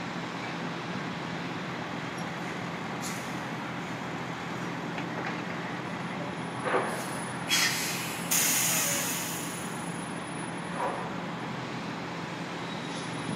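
Tractor-trailer's air brakes hissing in two loud blasts about seven and a half seconds in, the second longer and fading, over a steady low engine hum, with a few faint knocks.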